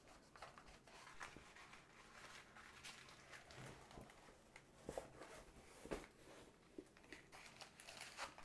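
Faint rustling of a plastic-covered diamond painting canvas being rolled up on a tube, with a few soft taps and crinkles.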